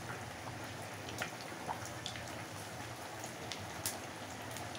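Battered eggplant slices (beguni) deep-frying in hot oil in a kadai: a steady sizzle with scattered crackling pops.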